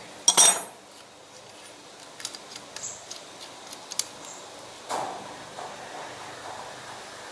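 Small metal parts and tools being handled during Holley carburetor work: a sharp, ringing clank just after the start, then scattered light clicks and taps, and another knock about five seconds in.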